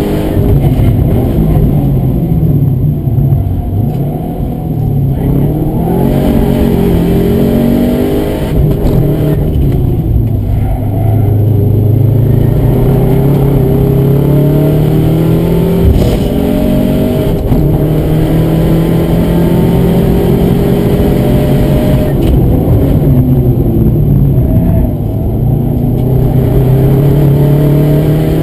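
Subaru WRX (2009) turbocharged flat-four engine heard from inside the cabin under hard driving on a race track, revs climbing through the gears and dropping back at each shift and under braking, several times over.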